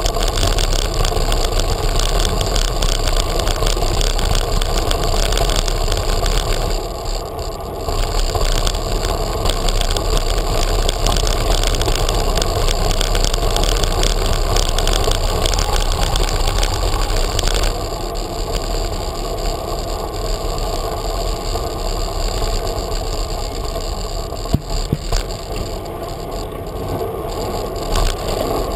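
Riding noise of a bicycle heard through a GoPro mounted on the bike: a steady rolling and rattling din from the tyres and the vibrating camera mount. It eases off about two-thirds of the way through, with a couple of sharp knocks shortly after.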